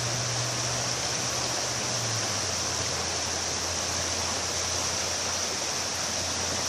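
Pacolet River water rushing steadily, an even, unbroken noise. A low hum runs beneath it and drops slightly in pitch about two seconds in.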